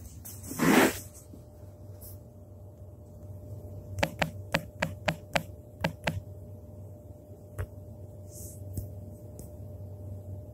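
Handling noise from a phone held close to its microphone: a brief rush of rubbing about a second in, then a quick run of about nine sharp taps a few seconds later, over a faint steady hum.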